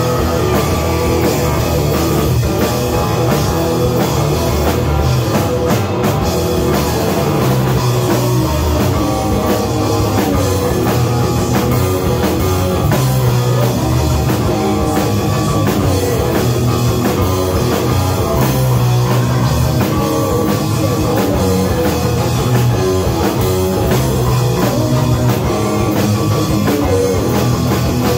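Live rock band playing a song: a Les Paul-style electric guitar, a bass guitar and a drum kit together, loud and steady throughout.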